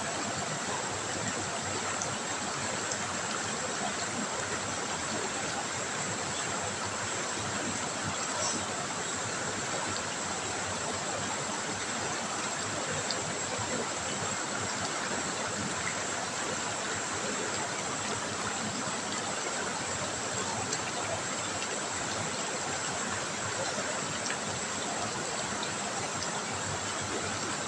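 River water trickling and running over stones, a steady even rush of flowing water.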